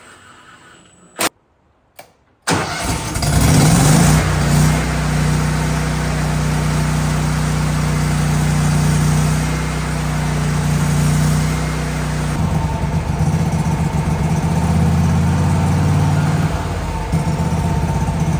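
Gasoline engine of a Miller Bobcat 250 portable welder-generator starting up: a couple of short clicks, then the engine catches abruptly about two and a half seconds in and runs steadily, its sound changing about twelve seconds in.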